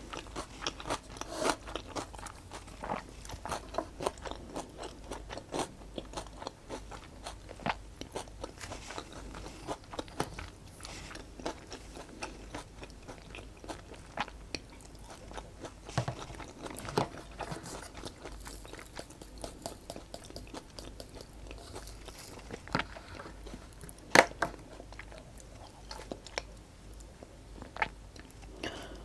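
Close-miked chewing of popiah rolls: many short crunches and wet mouth clicks, uneven in pace, with a sharper crunch toward the end.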